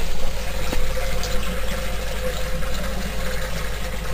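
Water running and gurgling through the perforated standpipe of an aquaponics grow bed, steady throughout, over a low hum.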